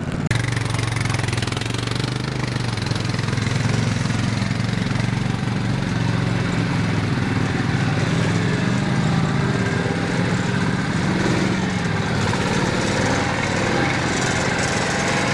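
Garden tractor engine running steadily, its pitch wavering slightly up and down.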